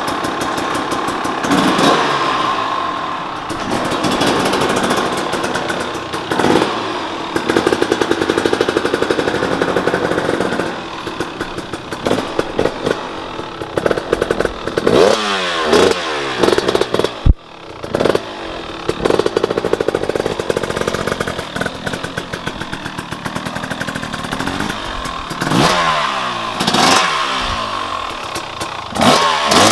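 2023 KTM 300 XC TBI two-stroke single-cylinder engine through an FMF aftermarket exhaust, its revs rising and falling again and again as the throttle is opened and rolled off. A single sharp knock comes about seventeen seconds in.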